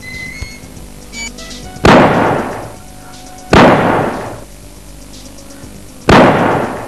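Three pistol gunshots, a sharp crack each time with a long fading tail, spaced about two seconds apart.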